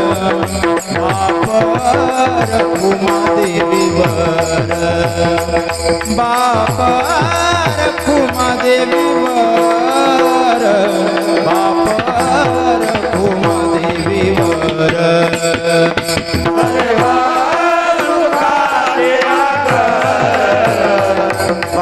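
Marathi devotional bhajan music: a gliding sung or melodic line over a steady held drone, with hand-drum strokes keeping a regular beat.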